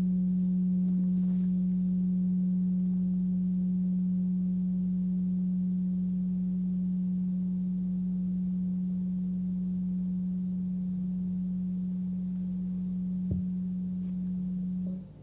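Forged Nepalese singing bowl, 19.7 cm across, ringing on its fundamental of about 181 Hz (F#), with fainter higher overtones, as a long, slowly fading hum. Near the end it stops abruptly as a hand damps the rim.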